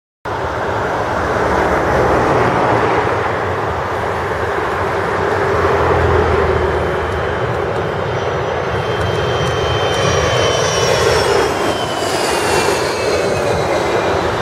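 Turbofan engines of a twin-engine business jet with rear-mounted engines, coming in to land: a loud, steady jet noise starts suddenly. In the second half, high turbine whines glide down in pitch as the jet passes.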